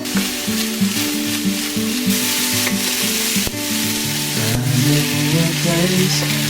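Food sizzling as it fries in a pan, with a few sharp clicks of a utensil, over background music.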